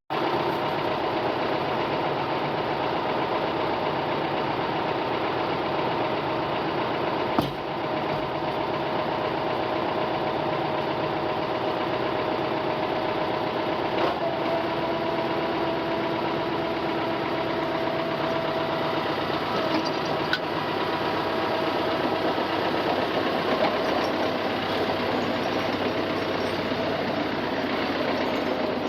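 Ford farm tractor engine running steadily under load while towing a disabled skid steer on a chain. There are two sharp clanks, about 7 seconds in and about 14 seconds in.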